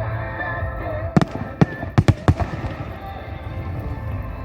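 Aerial fireworks shells bursting: four sharp bangs in quick succession starting about a second in, over a melody played on loudspeakers for the display.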